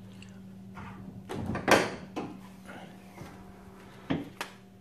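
A car hood being opened: a few sharp clicks and knocks from the latch and hood, the loudest a little under two seconds in.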